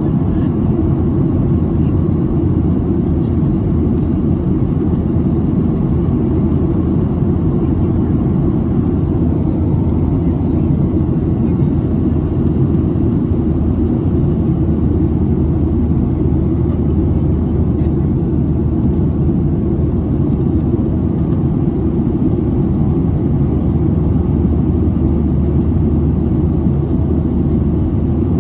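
Cabin noise aboard a Boeing 737-700 jet airliner: a steady low rumble of the engines and airflow that does not change.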